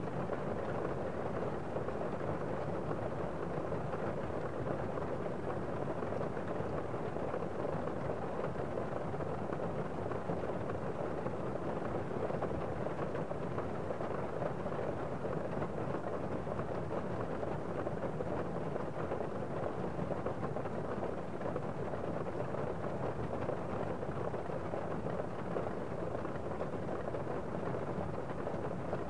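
Steady, dense rain noise with no single drops standing out, dull and muffled rather than crisp, holding an even level throughout.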